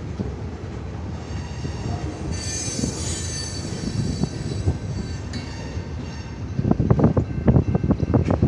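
Train rolling past with a steady low rumble. A high wheel squeal rings for about a second a couple of seconds in. Louder, irregular thumps come near the end.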